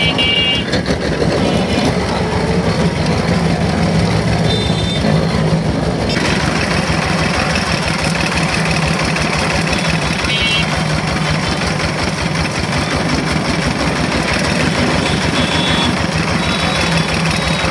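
Motor-driven sugarcane juice machine running steadily, its ribbed steel rollers crushing sugarcane stalks fed between them. There is a low hum with a fast, even pulse, and the crushing noise gets louder about six seconds in.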